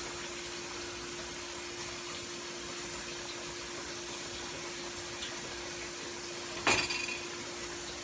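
Pork steaks simmering in broth in a skillet, a steady hiss over a low hum, with one sharp ringing clank of kitchenware against the pan about seven seconds in.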